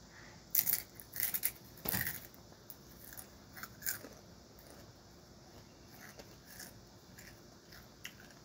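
Crunching and chewing a spicy rolled tortilla chip: a quick run of sharp crunches in the first two seconds, then a couple more around four seconds in.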